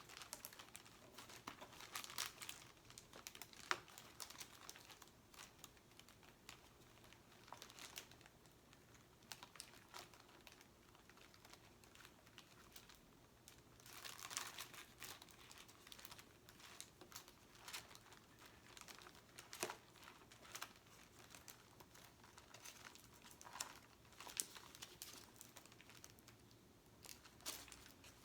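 Quiet close-up crinkling of sticker sheets and backing paper, with scattered small taps and clicks as stickers are handled and stuck onto a box. A longer stretch of crinkling comes about halfway through.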